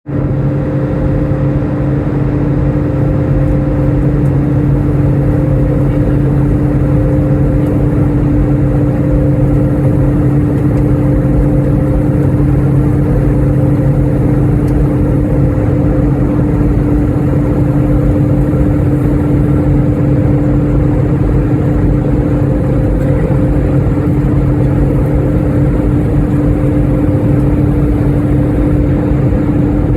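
Airliner engines droning as heard inside the passenger cabin in flight: a loud, even rush with a steady low hum held under it throughout.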